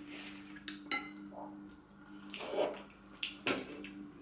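Chopsticks and dishes clinking and knocking at the table: a few light clicks, with a short louder rustle a little past halfway, over a steady low hum.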